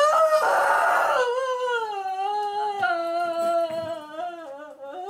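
A woman's long, high wail of distress, breathy and broken in the first second, then held and slowly falling in pitch as it fades.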